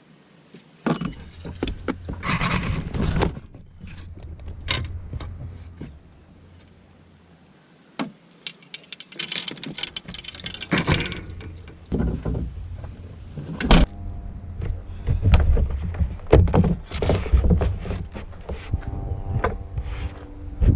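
Fishing gear being handled and moved about: irregular clatter, rattling and sharp knocks with rustling in between, pausing briefly partway through and getting busier in the second half.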